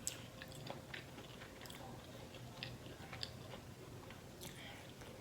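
A person chewing food close to the microphone: scattered soft, wet mouth clicks and smacks over a faint steady low hum.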